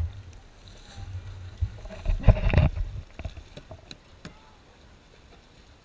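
Water splashing and sloshing around kayaks, loudest a little over two seconds in, over a low wind rumble on the microphone; a few small knocks and drips follow and it grows quieter.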